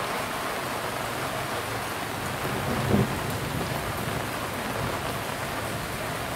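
A rain shower falling steadily, with a short low thud about three seconds in.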